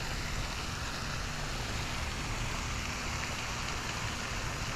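Steady outdoor background noise: an even hiss with a low rumble beneath, unchanging throughout.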